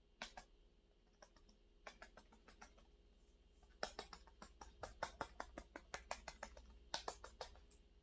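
Faint soft taps of a cushion-compact puff being patted against the cheek, a run of quick pats, several a second, through the second half, after a few scattered clicks from handling the compact.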